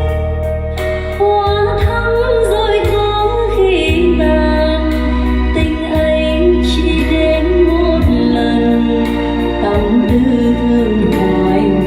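A Vietnamese ballad playing on JBL 4312 loudspeakers: a sung melody with wavering pitch over sustained keyboard chords and a steady bass.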